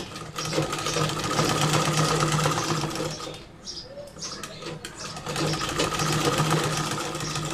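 Domestic sewing machine stitching fabric: a fast, even run of needle strokes over a steady hum for about three seconds, a short stop of about a second, then a second run of stitching.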